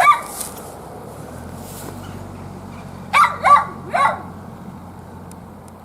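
A dog barking: one bark at the start, then three quick barks about three seconds in.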